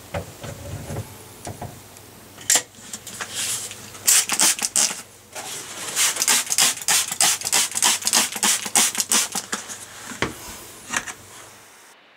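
Fresh silicone caulk along a sink rim being worked with water: a rapid run of short, hissy strokes, about three a second, starting a few seconds in and dying out near the end.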